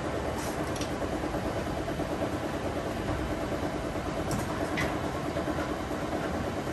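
Udon noodle-making machine running with a steady mechanical sound and a few light clicks.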